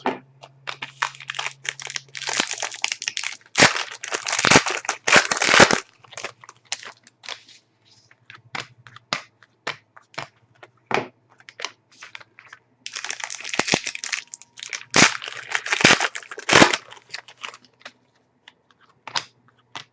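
Trading-card pack wrappers crinkling and tearing in two spells, one near the start and one past the middle, with scattered small clicks of cards being handled in between.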